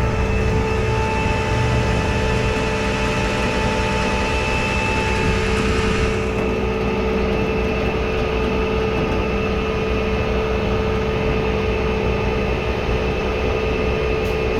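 Flatbed tow truck's engine running steadily under power-take-off load with a steady hydraulic whine as the winch draws a car up onto the bed. A higher hiss drops away about six seconds in.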